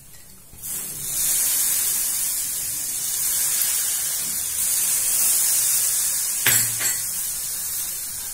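Besan masala in a hot pan sizzling steadily as sprinkled water hits it, starting about a second in. A wooden spatula knocks against the pan twice near the end.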